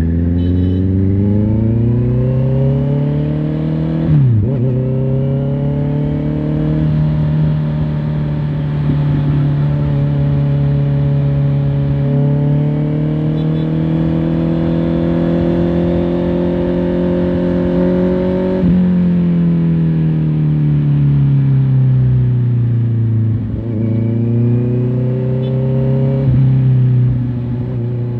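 Honda CBR650R's inline-four engine under way: it accelerates, drops in revs at an upshift about four seconds in, then pulls steadily with revs slowly climbing. Past the middle the revs dip sharply and fall away as the bike slows, then rise again as it accelerates near the end.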